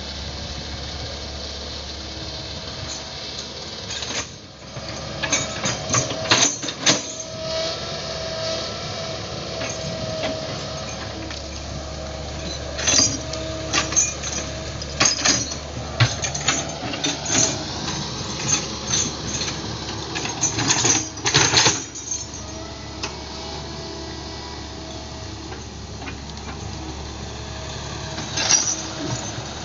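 Excavator's diesel engine running steadily under load, with repeated sharp metallic clanks and knocks from the machine working, in clusters through the middle and again near the end.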